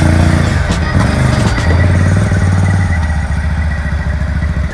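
Sport ATV (quad bike) engine running loudly as it drives along a dirt trail, its note shifting up and down with the throttle.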